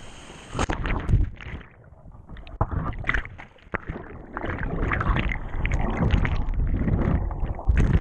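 Whitewater rapid heard from a capsized kayak: about a second in the sound turns muffled as the microphone goes under, with churning, bubbling water in uneven surges. A last loud surge comes as it breaks the surface near the end.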